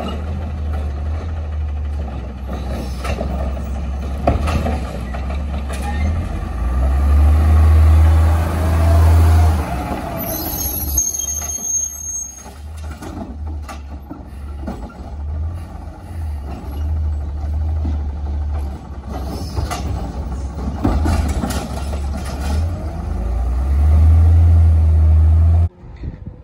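Autocar ACX garbage truck with a Heil Rapid Rail automated side loader working a recycling pickup. Its CNG engine runs with a heavy low rumble that rises in speed twice, along with scattered clanks and knocks from the arm and cart. An air hiss comes about ten seconds in. The sound cuts off abruptly near the end.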